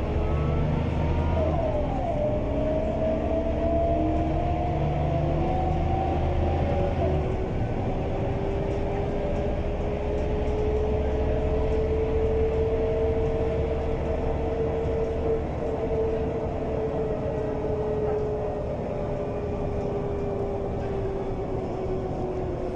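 Mercedes-Benz O345 city bus under way: the diesel engine hums steadily under the whine of its ZF 4HP-500 automatic gearbox. The whine shifts in pitch a couple of seconds in and again about seven seconds in, then slowly rises and falls.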